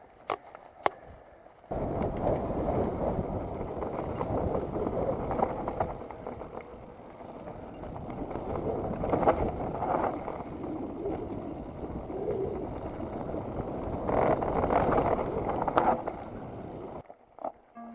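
Mountain bike riding fast down a dirt and gravel trail: a loud, rough rush of wind on the microphone mixed with tyre rumble and rattling over the ground. It starts abruptly after two sharp clicks in the first second, and cuts off suddenly about a second before the end.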